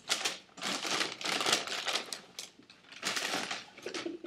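Paper fast-food packaging crinkling and rustling in several irregular bursts as the food is handled.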